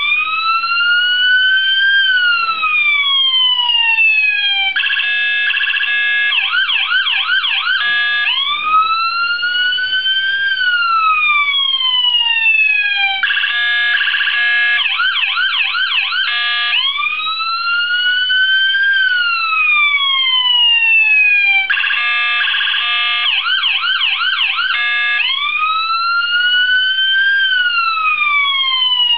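Electronic police siren cycling through its tones: a long wail that rises for about two seconds and falls away, then a short choppy stretch, then a run of quick yelp sweeps, the cycle repeating about every eight and a half seconds.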